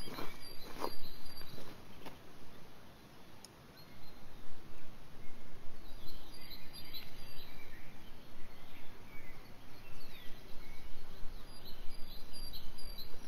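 Footsteps on a rocky dirt trail during the first two seconds, then steady outdoor forest noise with a few bird chirps.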